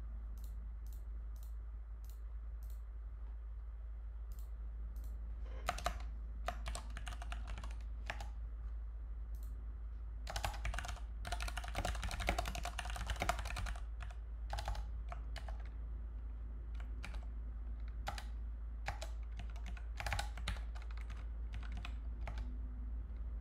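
Typing on a computer keyboard: scattered single clicks at first, then quick runs of keystrokes, the longest and densest a little before the middle, then more intermittent keys. A steady low hum runs underneath.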